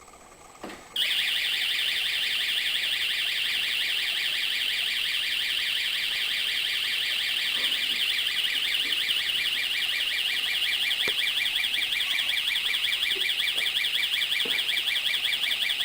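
Door alarm sounding: a loud, high-pitched electronic tone that warbles rapidly, starting abruptly about a second in, just after a short click, and then holding on without a break.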